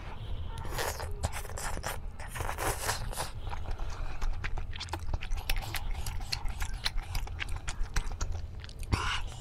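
Close-miked eating of thick dry ramen noodles: a slurp as the noodles go in near the start, then chewing with many small wet mouth clicks.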